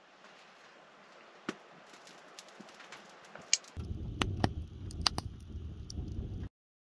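Wood fire burning in a woodstove: sharp crackles and pops over a low rushing sound of the flames, starting about four seconds in after a few faint clicks, and cutting off abruptly near the end.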